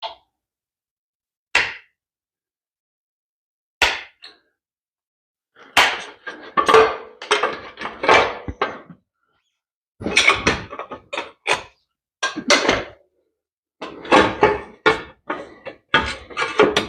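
Hand tools and metal parts clanking and knocking during motorcycle teardown work: a few separate knocks, then bursts of rattling metal clatter.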